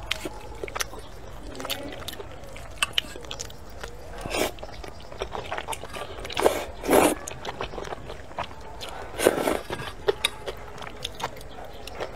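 Close-up eating sounds of thick stir-fried rice noodles: wet chewing and lip-smacking clicks throughout, with long noisy slurps of noodles about four and a half, six and a half to seven, and nine seconds in.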